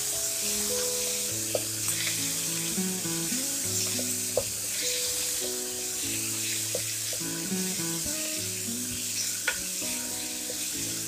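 Chopped onion and green chilies sizzling as they fry in oil and ghee in a pan, with a few sharp clicks of a spoon stirring. A background music melody plays throughout.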